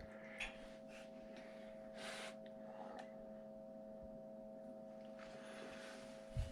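A faint, steady electrical hum, with a few soft, brief rustles.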